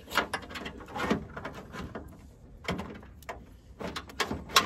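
Car wiring harness being pushed through a hole in a trunk lid: irregular short clicks, scrapes and rustles as the plastic connectors and cable rub against the sheet metal.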